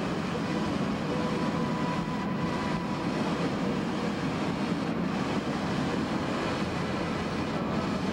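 Steady road noise of a moving vehicle.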